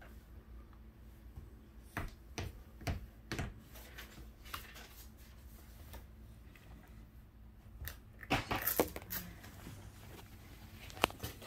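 Quiet room with a low steady hum, broken by a few soft knocks about two to three and a half seconds in, then a short burst of rustling and scraping about eight seconds in and a single click near the end.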